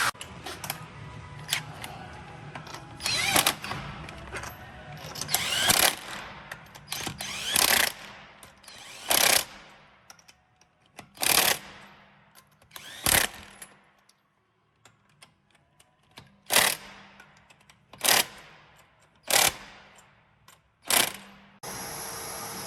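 Impact wrench run in short bursts, spinning lug nuts onto a wheel and hammering them tight. There are about a dozen loud bursts, each about half a second long, roughly one every one to two seconds.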